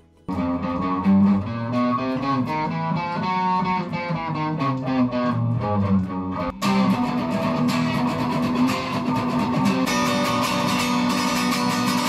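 Background music led by guitar, starting abruptly just after the opening and changing to a fuller, brighter section a little past halfway.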